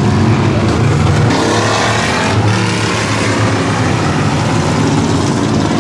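Engines of a pack of enduro race cars (old four-, six- and eight-cylinder street sedans) running together at race speed, with one car accelerating and its pitch rising about a second and a half in.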